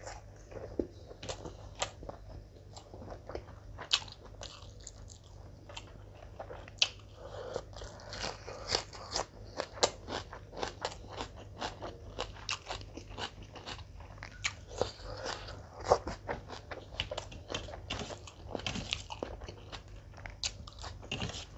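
Close-up mouth sounds of a person eating mutton dum biryani by hand: wet chewing and lip smacking with frequent crunchy bites, a string of sharp clicks throughout.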